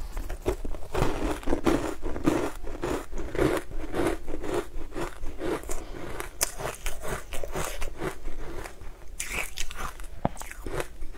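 A person biting and chewing a crumbly green frozen food close to a clip-on microphone: a dense run of crisp crunches, thickest in the first half and thinning to scattered crunches later.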